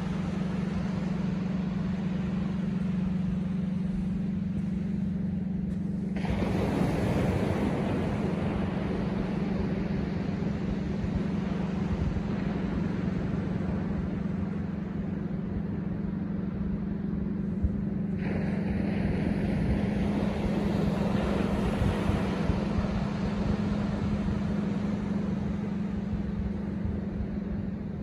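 Surf breaking and washing up a sandy ocean beach, swelling louder about six seconds in and again about eighteen seconds in, over a steady low hum.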